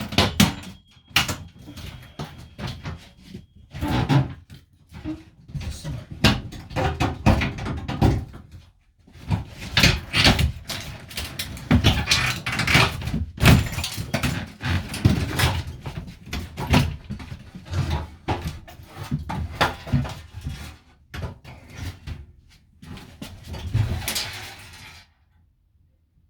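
Irregular knocking, cracking and clattering as interior fittings of a camper van are broken and pulled out, with heavy thumps among lighter rattles; it stops abruptly near the end.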